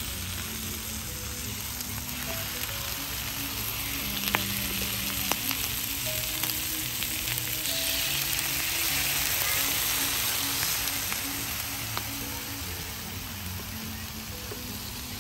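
Marinated chicken drumsticks sizzling in a steel tray on a hot barbecue hotplate, with a few sharp clicks of metal tongs. About eight seconds in, the sizzle swells louder as liquid is poured over the hot tray, then settles again.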